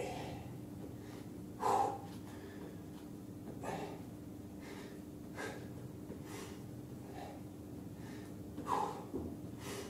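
A man breathing hard while exercising: short, forceful breaths every one to two seconds, the loudest about two seconds in, over a faint steady hum.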